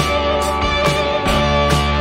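Background rock music with guitar and a steady beat, a little over two beats a second.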